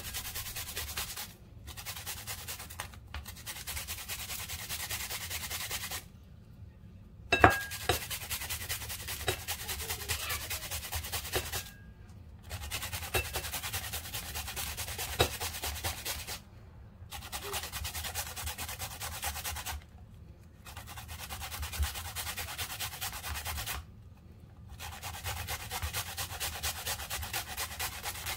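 Cucumber being grated on a flat stainless-steel hand grater over a plate: rapid rasping strokes in bouts of a few seconds, broken by short pauses, with a sharp knock of the grater about seven seconds in.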